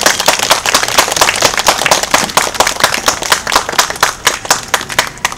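Audience applauding: many hands clapping, with some loud claps close by, the clapping thinning out near the end.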